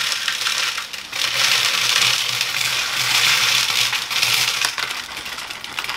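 Charred oak chips poured from a plastic bag, rattling into the bottom of an empty fermenter as a dense stream of small wooden clicks that builds through the middle and thins out about five seconds in.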